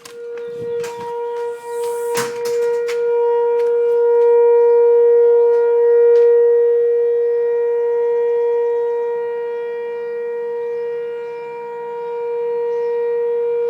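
Outdoor tornado warning siren sounding a steady single-pitch tone in a siren test, slowly swelling and fading in loudness. A few clicks come in the first few seconds.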